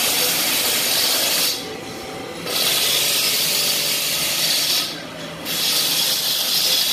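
A loud, steady hiss of rushing air that drops away twice, for about a second each time.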